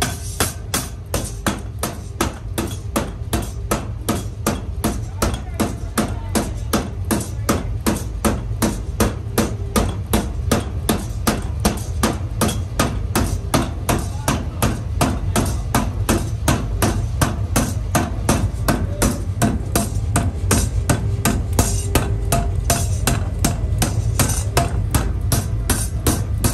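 Metal being hammered in a quick, even rhythm of sharp blows, over a steady low machine hum.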